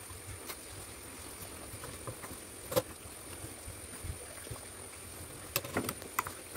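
Fabric being handled and shifted under a sewing machine's presser foot, with scattered light clicks and knocks: a sharp click about three seconds in and a quick cluster of knocks near the end. The machine itself is not stitching.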